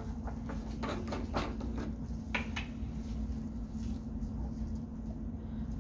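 A few light clicks and taps from handling a glass reagent bottle and a plastic pipette, over a steady low hum; the taps die away after about two and a half seconds.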